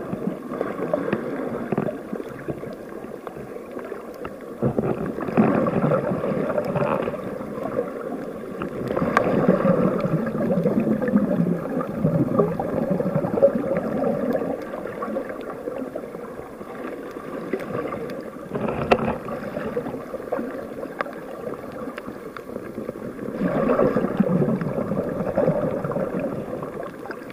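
Muffled sloshing and gurgling of water around a camera held underwater, swelling and easing several times.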